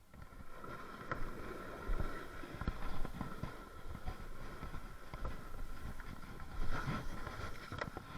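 Plastic kayak and paddle knocking, with water sloshing, as a kayak is launched and paddled.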